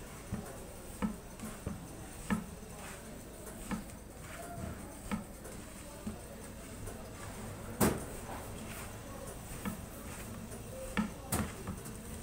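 Hands tossing and kneading spice-marinated chicken pieces in a large metal tray: soft wet handling with irregular knocks against the tray, the sharpest about eight seconds in.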